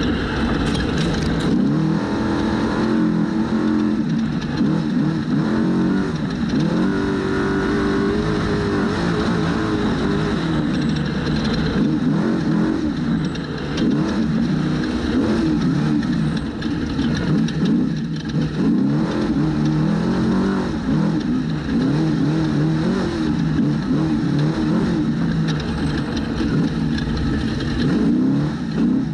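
Trophy truck engine at race pace, revving up and down over and over as the throttle comes on and off, pitch rising and falling every second or two.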